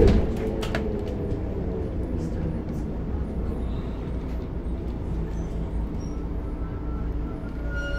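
Inside a moving bus: the diesel engine running steadily under the road rumble, with a loud knock at the very start. A faint squeal sets in near the end.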